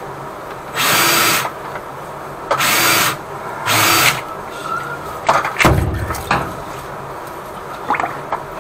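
Electric drain-cleaning machine spinning its cable in short bursts, three times, as the cable works at a clog in a drain pipe; water then sprays and gushes back out of the drain opening, with knocks and a low thud as the cable is worked and pulled.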